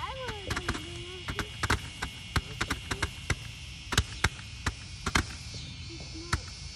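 Ground fountain firework spraying sparks: a steady hiss with scattered sharp crackling pops at irregular intervals, the hiss easing after about five seconds.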